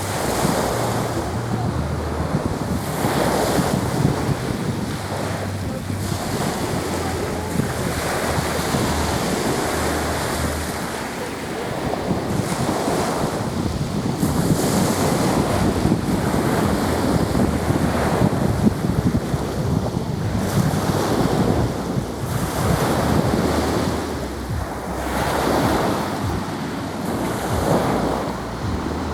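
Sea waves washing onto the shore, the surf swelling every few seconds, with wind buffeting the microphone.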